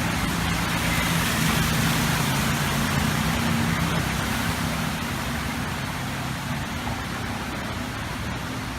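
Steady rushing of water with a low engine hum beneath it, easing a little after about five seconds.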